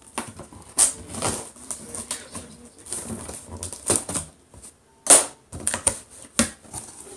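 Packing tape being peeled and torn off a cardboard box, with the cardboard flaps rustling and crackling as they are pulled open. The sharpest rips come about a second in and about five seconds in.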